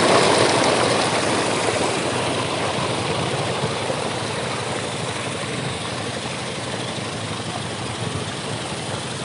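Engine of a river sand-mining dredge running steadily, with a rushing noise that slowly fades over the first few seconds.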